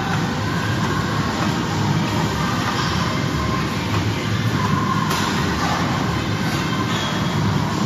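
Steady rumbling whir of gym machinery, with a faint clink about five seconds in.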